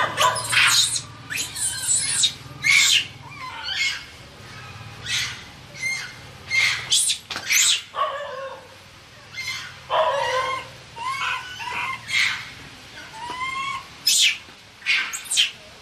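Baby macaque screaming in repeated short, high-pitched cries, a distress call for its mother.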